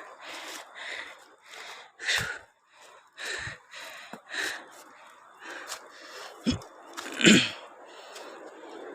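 A person breathing hard in a run of short, hissy breaths, with a few dull thumps, the loudest about seven seconds in.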